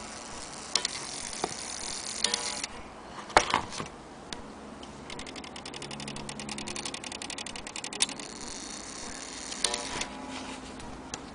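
Vintage German wall clock movement being handled: a few short metallic clinks and a sharp knock, then a rapid run of even clicking, about ten clicks a second, for about three seconds in the middle.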